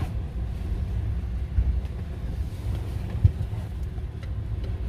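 Low steady rumble of a car heard from inside the cabin, with a short sharp knock about three seconds in.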